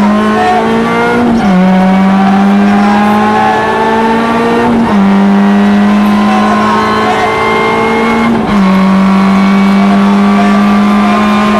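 Rally car engine pulling hard, heard from inside the cabin. Its pitch climbs steadily and drops sharply with an upshift about a second and a half in, again at about five seconds and again at about eight and a half seconds.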